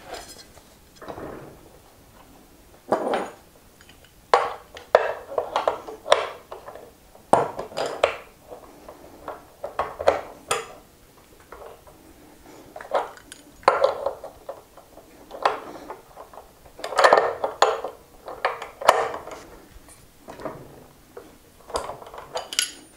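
Socket ratchet wrench clicking in short bursts as an axle nut is tightened, with metal tool clinks in between.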